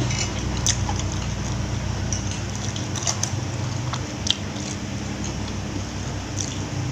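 Eating sounds: chewing and wet mouth noises with scattered sharp clicks, over a steady low hum.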